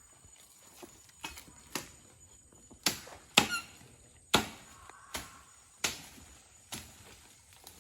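A series of sharp, irregular knocks on wood, about one every half second to a second, with a short falling squeak about three and a half seconds in.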